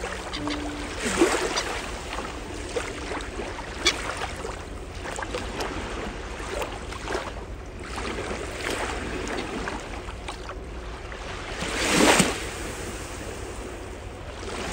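Small waves of the Baltic Sea lapping and washing in over shallow water at the shore, swelling louder shortly after the start and again near the end.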